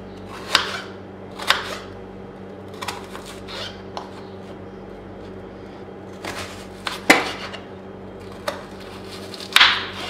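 Kitchen knife cutting through a red onion and knocking on a wooden cutting board: about nine separate cuts spaced unevenly, the sharpest near the end.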